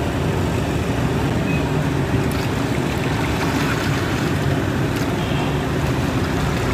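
Steady rumble of roadside traffic noise.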